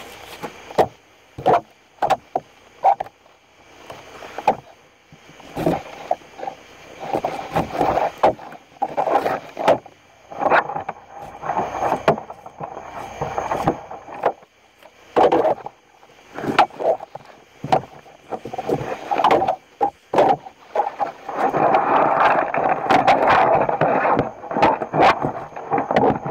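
Hide being pulled off a large catfish by hand: squeaky rubbing and tearing of the skin, broken by many sharp knocks and slaps of the fish and hands on the table. A longer, denser stretch of squeaky rubbing comes about three-quarters of the way in.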